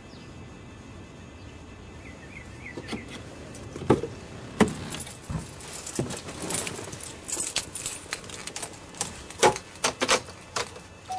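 A set of keys jangling, with irregular clicks and knocks starting about three seconds in and growing more frequent toward the end.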